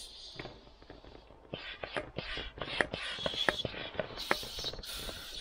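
Scattered clicks, taps and scraping of plastic fittings and PVC fabric as an inflatable kayak accessory and its hand-pump hose are handled, growing busier after the first second or so.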